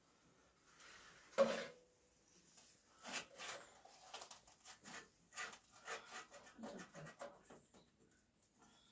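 Knife cutting pizza on a metal tray. A single clink of the blade on the tray about a second and a half in rings briefly, then comes a run of short scraping cutting strokes.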